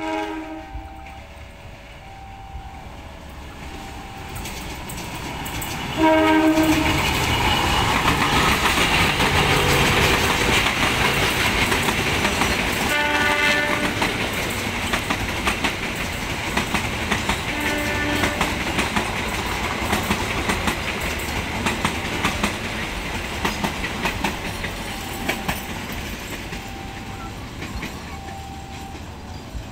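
Diesel-electric locomotive hauling a passenger train approaches and passes close by. Its horn sounds about six seconds in, again around thirteen seconds and once more around eighteen seconds, over a loud rushing run of the train. The coaches' wheels clickety-clack over the rail joints as they go by, and the sound slowly fades near the end.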